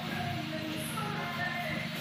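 Background music: a melody of held notes stepping in pitch over a steady low accompaniment.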